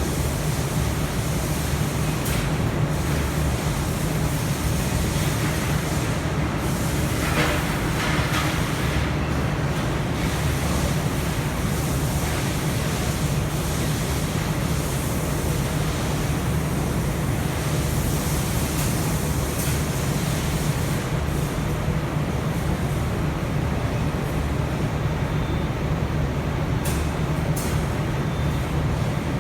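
CNC machine running a test job, a steady low hum under an even machine noise.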